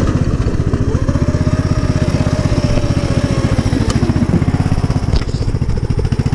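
Engine of an engine-swapped Poulan riding lawn mower running steadily, with a whine that rises and falls between about one and four seconds in. A short click comes about five seconds in.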